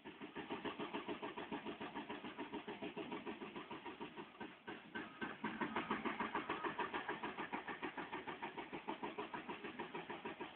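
Diesel engine of heavy construction plant, such as a dump truck or digger, running with a fast, even chugging pulse. It comes in abruptly at the start.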